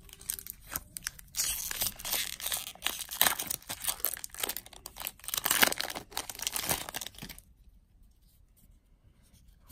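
A foil Magic: The Gathering booster pack wrapper being torn open and crinkled by hand, a dense crackling rustle that stops about seven and a half seconds in.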